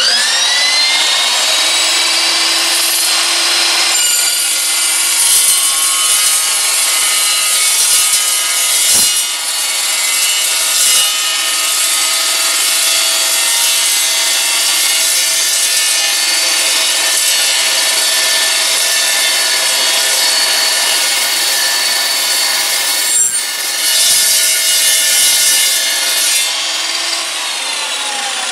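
Evolution EVOSAW380 cold-cut chop saw spinning up, then running loud and steady as its toothed cold-cut blade saws through 1.5-inch square steel tubing; the motor winds down near the end.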